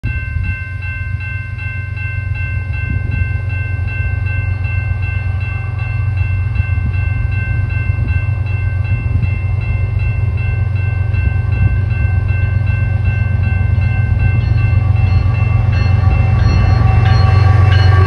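Canadian Pacific diesel locomotives hauling a loaded coal train, a low rumble that grows steadily louder as the train approaches and passes close by near the end. A few steady high tones run through the first part.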